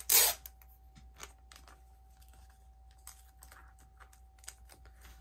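A trading card being sealed into a plastic protector: a brief plastic swish at the start, then faint crinkles and small clicks of handling.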